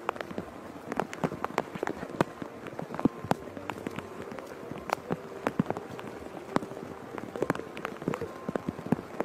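Rain falling, with many sharp, irregular taps of drops striking umbrellas close by, several a second.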